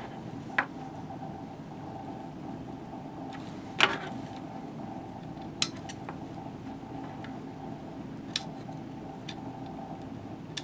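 A handful of small, sharp clicks and taps from handling a carbon rod blank, thread and a small trimming blade while finishing a thread wrap, the loudest a little under four seconds in, over a steady background hum.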